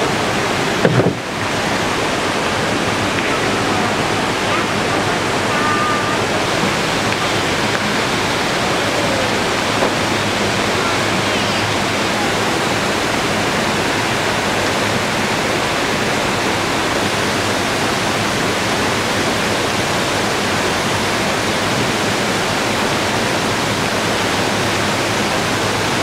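Steady rush of water from small waterfalls and cascades on a mountain river, with a short bump about a second in.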